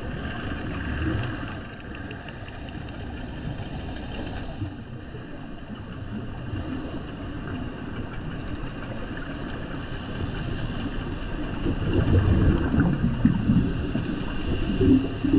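Underwater water noise picked up by a GoPro action camera: a steady, muffled rumble that grows louder and rougher about twelve seconds in.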